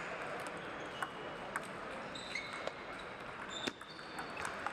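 Table tennis hall ambience: scattered sharp clicks of celluloid-type table tennis balls bouncing on tables and bats, about five in all, with a few short high squeaks, over a steady hall murmur.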